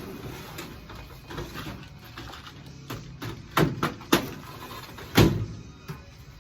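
Storage-cabinet drawers being pulled out and handled, with scattered sharp knocks and clatter. The loudest knocks fall around three and a half, four and five seconds in.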